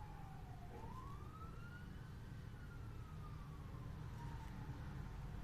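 A siren wailing: its pitch falls, swings back up about a second in, then slowly falls away again, over a steady low hum.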